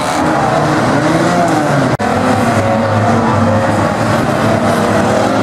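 Engines of several banger racing cars running and revving round the track at once, their notes rising and falling over one another. The sound cuts out for an instant about two seconds in.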